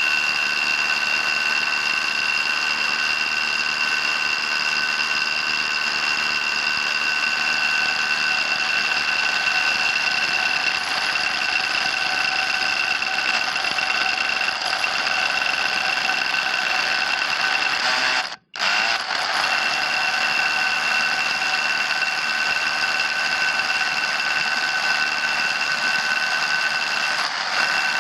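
Kobalt 24V Max SDS Plus rotary hammer hammer-drilling a 1-inch SDS Plus bit into a concrete block, running under heavy load with a steady high whine. It stops for a moment about two-thirds of the way through, then starts again.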